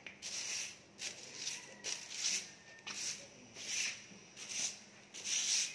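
Footsteps scuffing on a concrete floor, a short scrape about every two-thirds of a second at walking pace.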